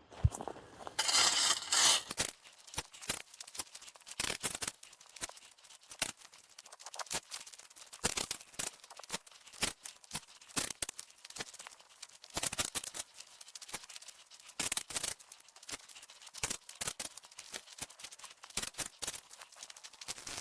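Loose gravel being scraped and pulled with a hand tool, the stones clicking and rattling in irregular bursts, with a longer scrape about a second in.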